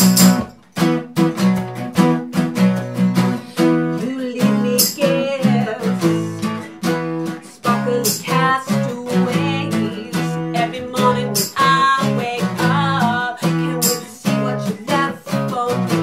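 A band playing a song: acoustic guitars strummed in a steady rhythm, with a woman singing over them.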